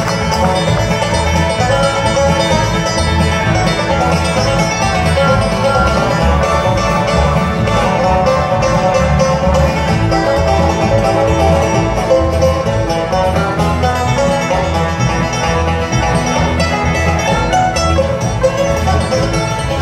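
Live bluegrass band playing: fast banjo picking over acoustic guitar strumming and a steady upright bass pulse.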